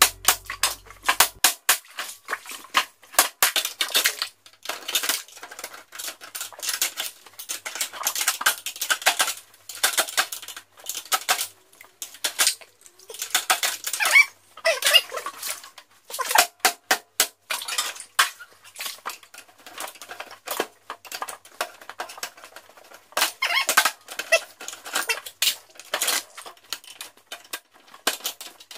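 Metal safe deposit box drawers clanking and rattling as they are pulled out and rummaged through, in quick irregular clatters. A few squeaks of metal rubbing on metal come in the middle.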